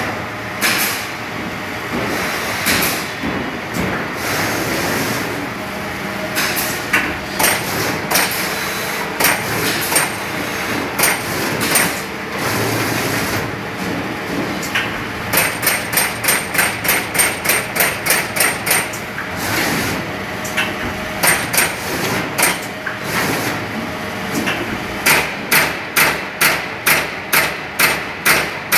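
CNC punch press punching sheet metal: sharp, repeated punch strikes over a steady machine hum. The strikes come singly and irregularly at first, then in fast, even runs of about three a second.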